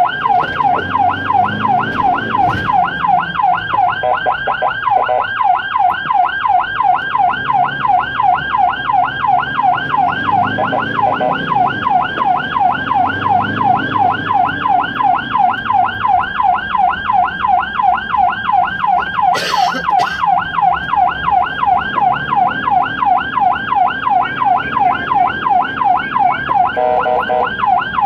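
Ambulance siren sounding a fast, evenly repeating up-and-down yelp, loud and continuous. Near the end a second, lower pulsing tone joins it.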